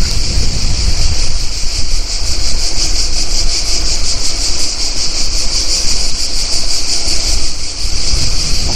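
Chorus of cicadas: a dense, high, steady buzz with a fine pulsing texture. Under it is a low rumble from the bicycle's tyres rolling on the road.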